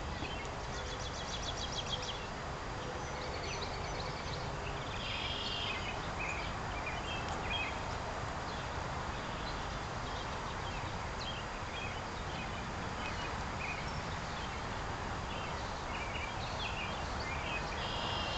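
Scattered high-pitched bird peeps and chirps over a steady outdoor background noise, with a rapid trill about a second in.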